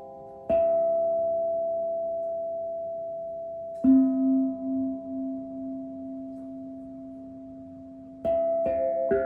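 Metal singing bowls of different pitches struck one at a time. Each rings on and slowly fades, the lower one with a slow wobble. There are single strikes about half a second in and at about four seconds, then a quick run of several strikes near the end.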